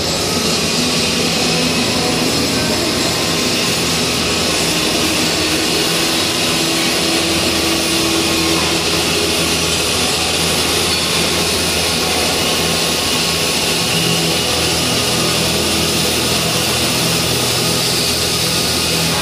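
Flux-cored arc welding: the arc's steady, even hiss as a bead is run around a rotated flange, with a low steady hum underneath.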